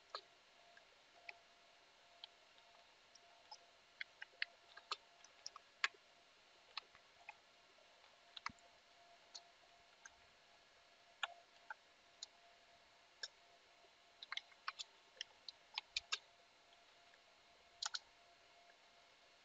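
Faint, irregular clicks of computer keyboard keystrokes as commands are typed, over a quiet background with a faint steady hum.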